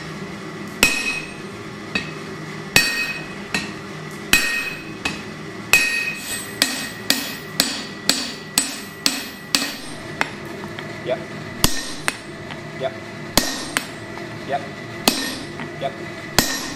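Hammers striking red-hot steel on an anvil in a series of sharp blows, about one to two a second, coming quicker around the middle. The anvil gives a steady ring under the strikes.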